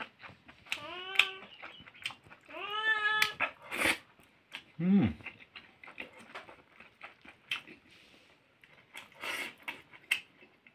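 A cat meowing: two drawn-out meows that rise and fall in pitch, about one second and three seconds in, then a shorter, lower call that falls away around five seconds in. Between and after them, close-miked eating noises: scattered smacking clicks.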